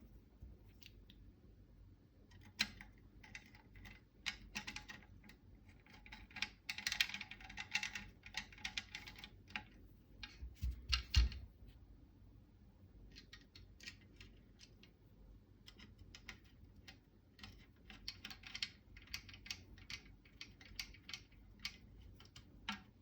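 Irregular bursts of small metallic clicks and taps from hand tools and screws being worked: Torx screws driven and handled on a rifle's receiver. The clicking comes in clusters, densest about a third of the way in, with a single heavier knock just before the middle.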